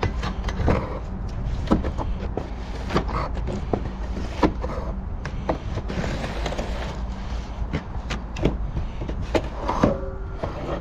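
A steady low engine rumble with frequent short, sharp knocks and rattles over it.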